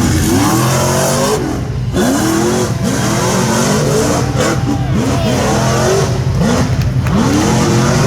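Rock bouncer race buggy engine revving hard, its pitch climbing and dropping again and again over a steady loud rumble.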